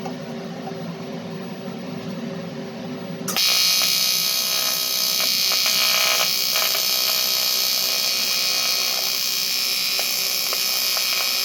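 AC TIG welding arc on aluminium. A lower steady hum for the first few seconds, then about three seconds in the arc strikes into a loud, steady, bright buzzing hiss that holds without a break.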